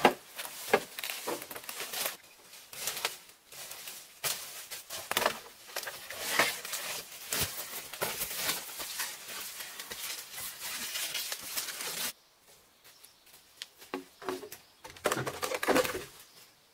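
Dense crackling and rustling of dry leaves and undergrowth as a long bamboo pole is hauled through the forest. This stops abruptly about twelve seconds in, and near the end a few sharp knocks follow as a blade strikes bamboo.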